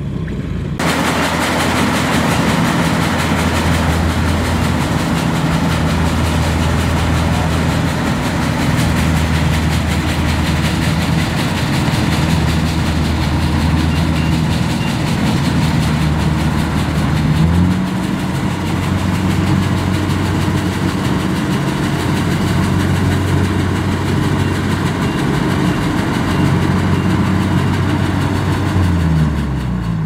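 Kubota DC-70 combine harvester running as it cuts rice: a steady diesel engine note over the rushing of its machinery. The engine note steps up a little past halfway through.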